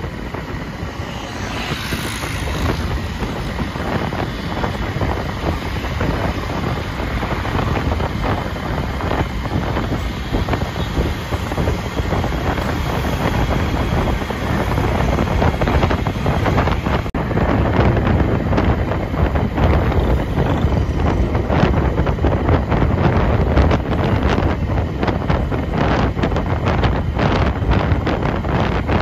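Wind rushing and buffeting over the microphone of a camera on a moving vehicle, with low road and engine noise underneath, getting a little louder in the second half.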